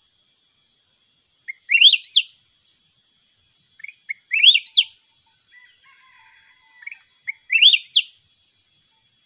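Caged bulbul singing: three short, sweet phrases of quick rising whistled notes, one about every three seconds, with softer chirps in between.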